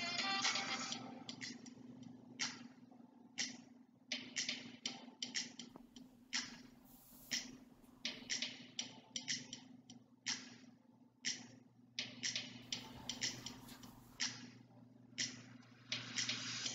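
Silicone spatula tapping and scraping against a stainless steel pot while mashed potato is stirred: a string of irregular sharp clicks and knocks, sometimes several a second, over a low steady hum. Background music fades out about a second in and comes back near the end.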